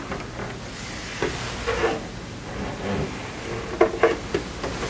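Scattered wooden knocks and scuffs as the wall bed's wooden cabinet is shifted and seated on its subfloor, with a few sharper knocks close together near the end.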